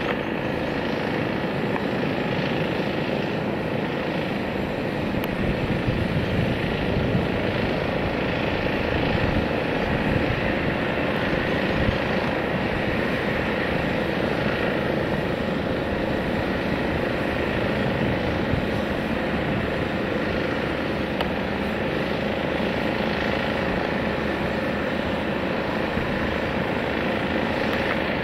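Airbus A321-231's two IAE V2500 turbofan engines, heard from the ground as the jet climbs away after takeoff: a steady, even rumble with faint steady tones in it.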